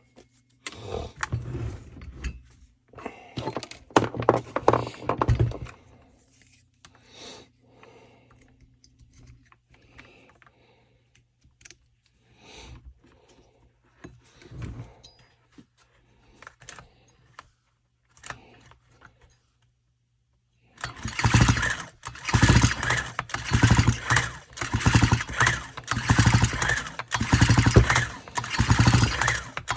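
Clicks and rattles of parts being handled on a Stihl FS 45 string trimmer, then about two-thirds of the way in a run of loud, rapid rasping strokes, typical of its recoil starter being pulled over and over to test the new ignition coil for spark.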